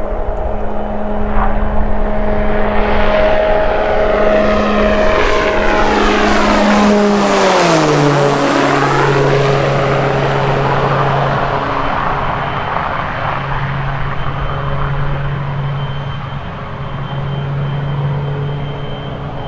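Twin-engine propeller airplane passing low overhead on landing approach. Its steady engine drone and high whine drop sharply in pitch about seven to eight seconds in as it goes over, then settle into a lower steady drone as it moves away toward the runway.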